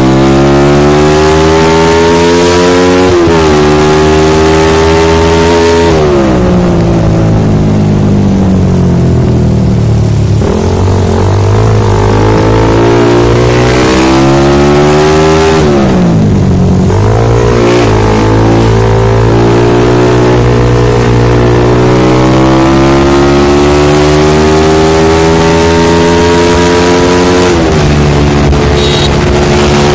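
Suzuki Satria FU 150's single-cylinder engine through an aftermarket Elmer racing exhaust with freshly repacked glasswool, running on a PE racing carburettor, heard while riding. The engine pitch climbs under acceleration and falls back several times.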